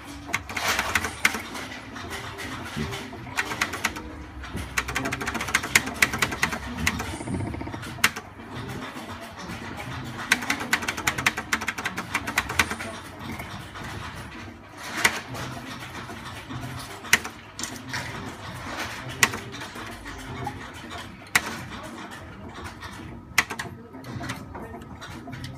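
Merkur slot machine's electronic sounds during free games: spinning reels with bursts of rapid clicking ticks and short jingle tones. In the second half a sharp click lands about every two seconds as each free spin plays out.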